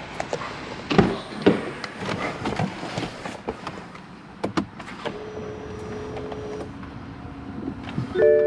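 Clicks and small knocks from inside a BMW F10 M5 Competition as it is readied for a cold start, then a steady electric whine for about a second and a half and a low hum as the car's systems wake. Near the end, a much louder steady drone sets in as the engine fires.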